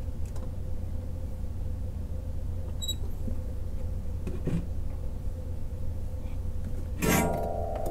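A steady low hum, with a few faint clicks and a brief louder sound a little before the end.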